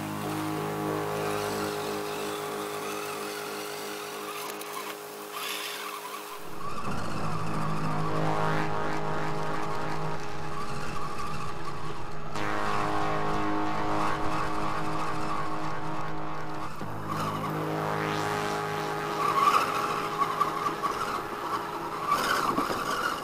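Background music. A deeper bass part comes in about six seconds in.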